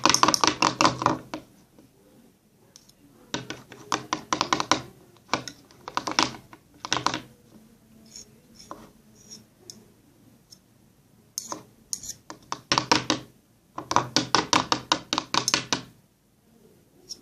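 A spoon stirring slime in a plastic bowl: bursts of quick clicking, tapping strokes against the bowl, several strokes a second, with short pauses between the bursts.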